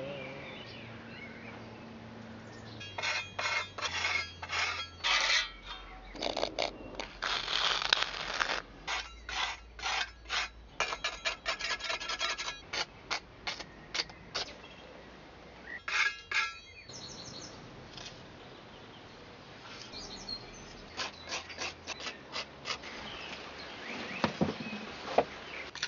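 A flat metal hand scraper shaving dry cob (clay and sand earthen plaster) off a statue's surface in quick repeated strokes, in runs with short pauses.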